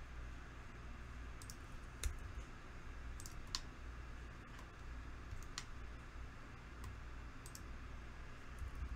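Scattered sharp clicks of a computer mouse and keyboard used at the desk, a few seconds apart, over a low steady hum.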